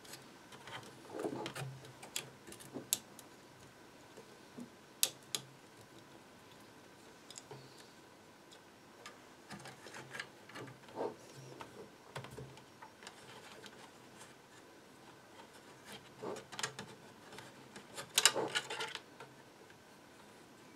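Scattered light clicks, taps and rustles of hands handling plastic parts, cables and connectors on a DJI Phantom 2 quadcopter. There is one sharp click about five seconds in and a denser clatter of handling about eighteen seconds in.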